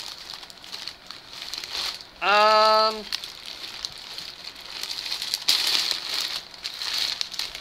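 Plastic poly mailer bag crinkling and rustling as hands rummage inside it. About two seconds in, one short held vocal note, like a hum, is the loudest sound.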